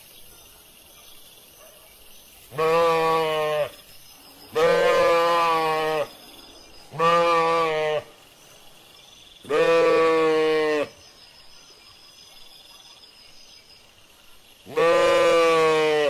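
Sheep bleating: five long bleats of a second or so each, with uneven gaps between them.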